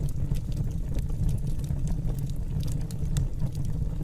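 Wood fire burning: a steady low rumble of flames with scattered crackles and pops.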